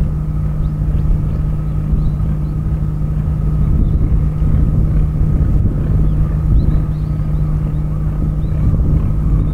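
A steady low engine drone with a constant hum, running evenly without change.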